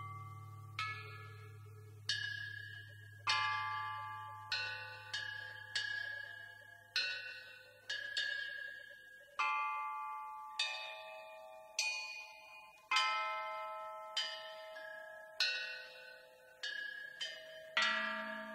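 Slow instrumental music of single struck, bell-like notes, about one a second, each ringing and fading away, over a low drone that fades out about halfway through.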